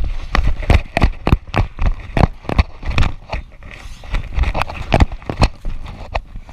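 Running footsteps of an airsoft player, heavy thuds about three a second with gear rattling on each stride.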